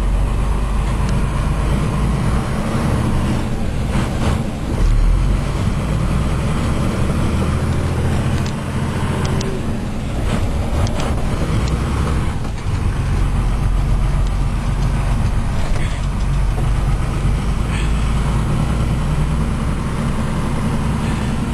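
Cummins B-series diesel in a Zil-131 military truck running under load as the truck drives slowly, heard from inside the cab. A few short knocks and rattles are heard over the steady engine sound.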